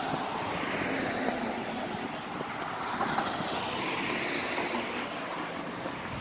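Outdoor street noise: a steady rush of passing road traffic mixed with wind, swelling about four seconds in.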